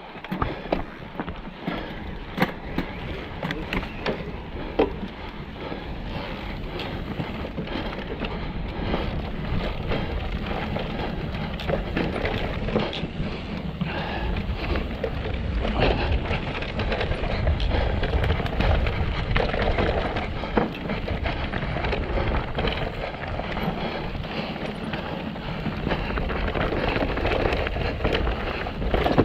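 Mountain bike descending a steep, rocky trail: tyres rumbling over rock and dirt, with frequent sharp knocks and rattles from the bike. It grows louder from about ten seconds in.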